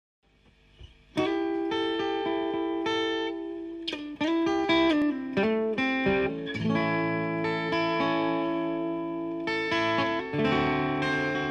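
Acoustic guitar fingerpicked in a slow blues intro. Single plucked notes begin about a second in, and fuller ringing chords follow in the second half.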